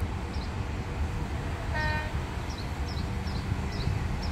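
A short horn toot about two seconds in, over a steady low rumble, with birds chirping.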